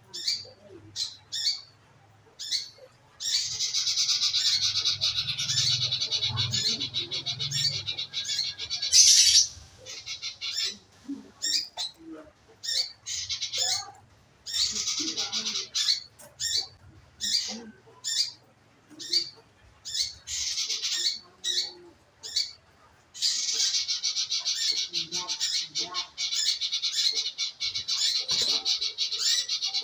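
Manggaran bird song used as a lure to set a kept bird singing: long, fast, rattling trills broken by runs of short separate chirps, with one sharp loud note about nine seconds in.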